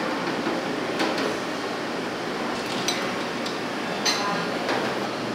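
A metal noodle basket and utensils clinking a few times against a stainless pot and bowls, over a steady hiss from the cooking station.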